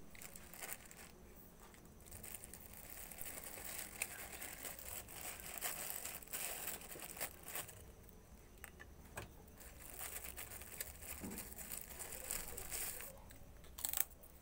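Thin clear plastic bag crinkling and rustling in a hand, in irregular spurts, with a few sharp crackles near the end.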